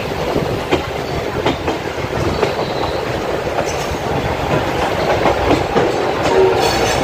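Wheels of a moving Indian Railways express passenger coach clattering over rail joints and points, heard from the coach's open doorway: a steady loud rumble with irregular clickety-clack knocks. A brief high-pitched squeal near the end.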